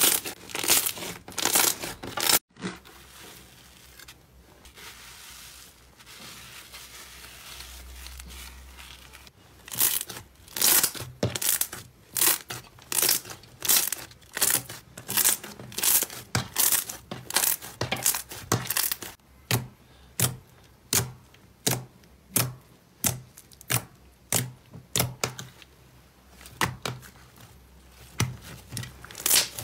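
Hands kneading and pressing soft slime, with a long run of sharp pops and crackles, about two a second, as trapped air bubbles are squeezed out of it. A few seconds near the start are quieter, soft squishing.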